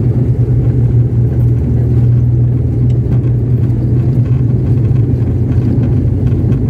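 A turboprop airliner's wing-mounted engine and propeller drone steadily, heard from inside the cabin beside the engine: a loud, even low hum over a rumble.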